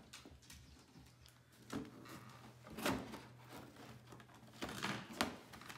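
Scissors snipping and scraping at the packing tape on a cardboard shoebox, with cardboard rustling and a few sharp knocks as the box is handled.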